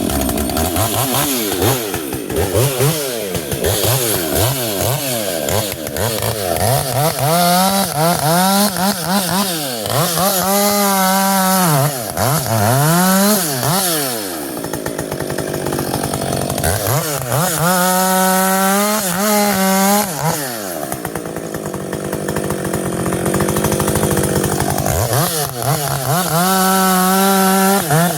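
Husqvarna 560 XP two-stroke chainsaw with a muffler mod, on a round-filed semi-chisel chain, bucking dry silver birch. The engine is revved up and down repeatedly at first, then held at full throttle through three cuts, dropping back between them.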